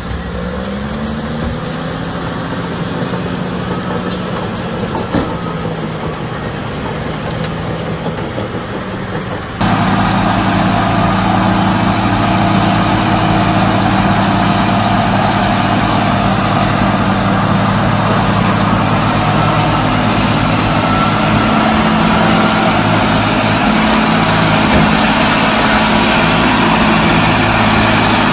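Heavy diesel engines working hard. First an eight-wheel dump truck's engine revs up and holds as it drives through soft sand. After a sudden cut about ten seconds in, a louder, steady drone comes from big farm tractors' diesel engines under load as a John Deere tractor tows a Case IH tractor stuck in mud.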